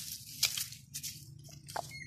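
A pointer hunting dog nosing into a burrow entrance among dry leaves: a few short, separate rustles, one about half a second in and another near the end.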